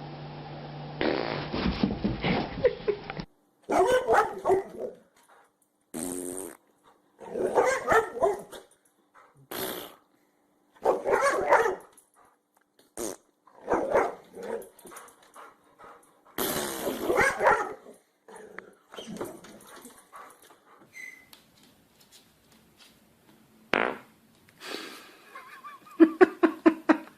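A dog barking and growling in short bursts, one about every second and a half to two seconds, with a quicker run of barks near the end; a fart sound is also heard.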